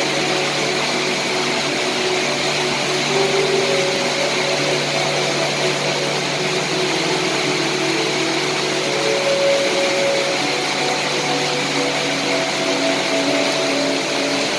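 Steady, dense rain hiss without a break. Faint held tones lie underneath, shifting pitch every second or two.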